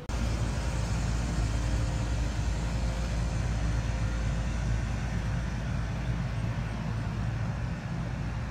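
Wind buffeting the microphone: a steady low rumble with hiss.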